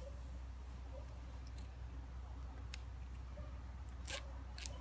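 Faint handling noises as a small packet from a fossil dig kit is worked open by hand: a few sharp clicks, the two loudest near the end, over a low steady hum.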